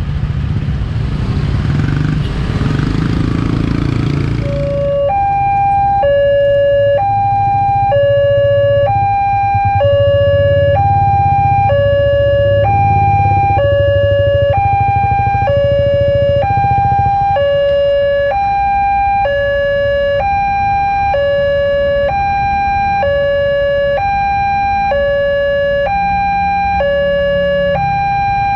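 Railway level-crossing warning alarm: an electronic two-tone chime, high and low tones alternating about once a second, with motorcycle engines idling underneath. A loud rushing noise covers the first few seconds, and the chime comes through once it fades.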